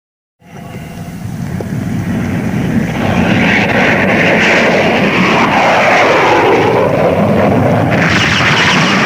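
Film sound effect of a steady aircraft-like engine noise, rising out of silence over about three seconds and then holding, with a tone that dips in pitch and rises again around the middle.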